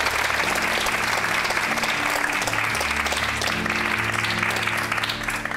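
Theatre audience applauding over music with sustained low notes that shift every second or so; both fade away near the end.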